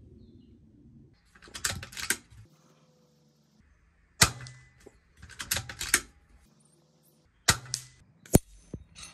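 Daystate Wolverine R .22 PCP air rifle, sub-12 ft·lb, firing: three sharp cracks, the first about four seconds in and two more near the end, with two bursts of rapid metallic clicking between them.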